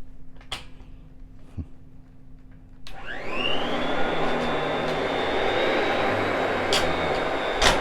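Vintage Royal direct-air upright vacuum switched on about three seconds in after a few light clicks; the motor spins up with a quickly rising whine, then runs at a steady high pitch.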